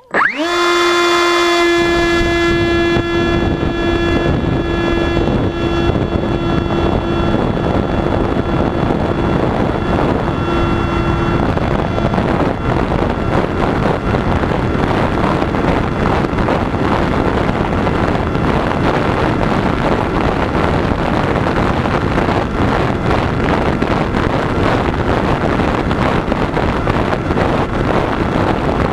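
Electric RC plane motor and propeller spinning up sharply at the start to a steady high whine with many overtones. Heavy wind noise rushes over the microphone. The whine fades under the wind about a third of the way in.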